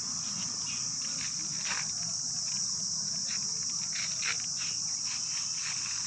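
Steady, high-pitched chorus of insects droning without a break, with scattered faint crackles underneath.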